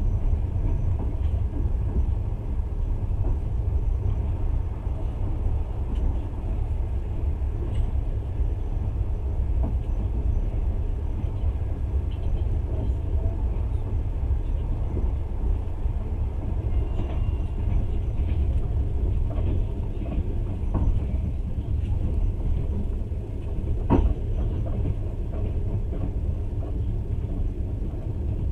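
Passenger train running at speed, heard from inside the carriage: a steady low rumble of wheels on rails with faint scattered clicks, and one sharper knock near the end.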